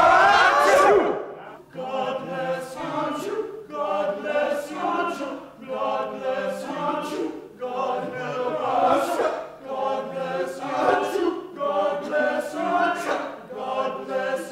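Male chorus singing: a loud held chord that rises in pitch and breaks off about a second in, then short, evenly paced chanted phrases, about one a second.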